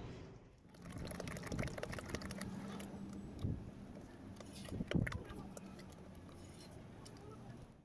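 A bare hand stirring and kneading wet plaster in a plastic tub: irregular wet sloshing and squelching, with many small splats.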